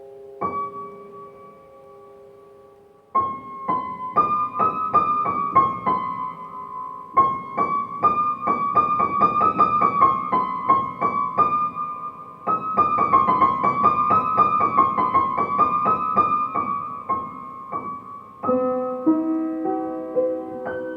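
Piano music: a single held note, then fast runs of quickly repeated notes from about three seconds in, moving to lower sustained notes near the end.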